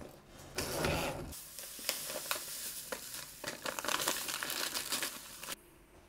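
Granulated sugar poured from a paper bag into a steel pot of puréed kiwi: a steady sandy hiss with the paper bag crinkling. It cuts off suddenly about five and a half seconds in.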